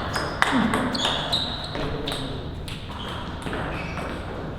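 Table tennis ball being hit back and forth, sharp clicks off bats and table about every half second to second, with a low hum of other voices and play behind.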